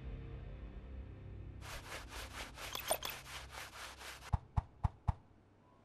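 Logo sting sound effect at the end of a news clip: music fading out, then a scratchy, rubbing noise that pulses about eight times a second for two and a half seconds, then four sharp clicks in quick succession.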